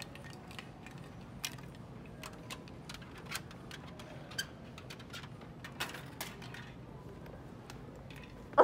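Handling noise from a hand-held phone: scattered light clicks and taps over a steady low background hum, with a loud double knock right at the end.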